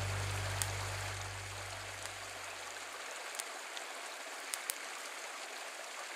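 Small forest creek flowing steadily, with a few faint clicks. A low sustained music note fades out over the first three seconds.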